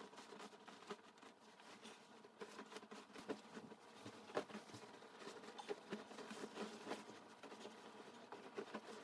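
Faint rustling and soft irregular ticks of a duvet and its fabric cover being handled, lifted and shaken out.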